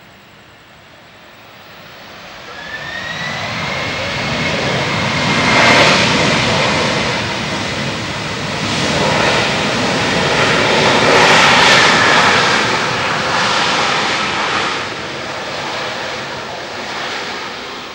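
Boeing 767-300ER's jet engines running loud on the landing roll, with a whine that rises in pitch about two to three seconds in as the engines spool up. The sound grows, peaks twice as the airliner passes, then fades near the end.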